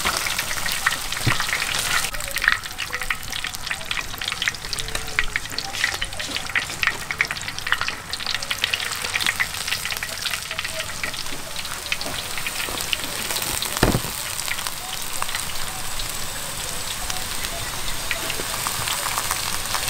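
Pork belly deep-frying in a wok of hot oil: a steady sizzle thick with small crackles and pops. There is a single knock about two-thirds of the way through.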